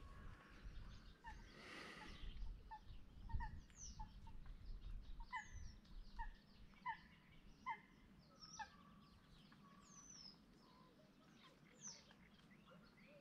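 Faint bird calls from the surrounding reeds: a series of short repeated notes, roughly one or two a second, with a few high falling whistles in between, fading out in the last few seconds.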